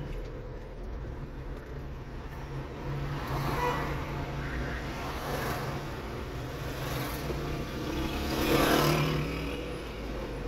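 City street traffic in slow stop-and-go driving: a steady low engine hum, with vehicles passing close twice, the louder pass about eight and a half seconds in.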